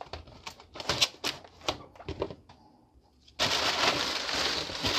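A package being opened by hand: a quick run of sharp clicks and taps as it is handled, then, about three and a half seconds in, a continuous ripping noise as the packaging is torn open.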